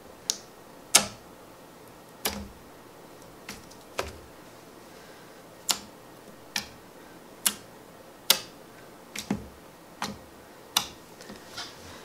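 Clear jelly slime pressed and poked with a fingertip, giving a dozen or so sharp little pops and clicks at uneven intervals as it sticks and unsticks and trapped air bursts.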